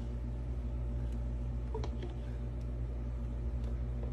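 A steady low mechanical hum, with a couple of faint taps about two seconds in from a wooden craft stick stirring epoxy resin in a clear plastic cup.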